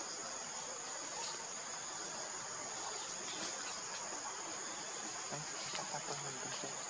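Steady, high-pitched drone of insects chirring in the forest.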